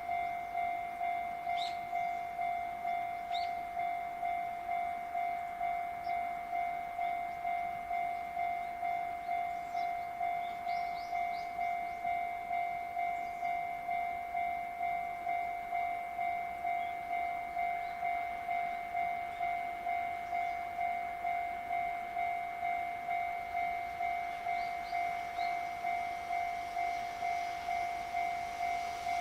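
Japanese railway level-crossing warning bell ringing, one electronic tone pulsing evenly about twice a second, signalling an approaching train. From about halfway through, the noise of the oncoming train rises beneath it.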